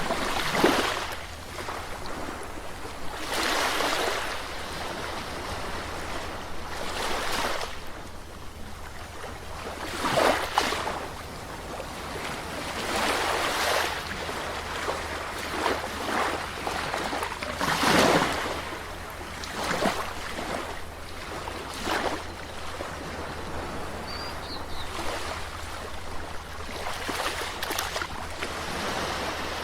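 Calm sea waves washing onto a shore, one surge every three to four seconds, each swelling and then fading, over a steady low rumble.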